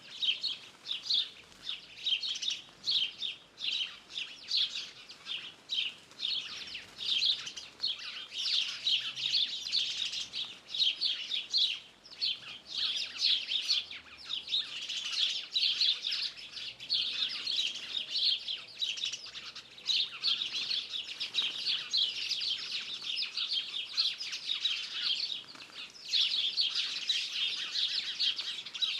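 Several birds singing and chirping at once, a dense, continuous chorus of quick high notes.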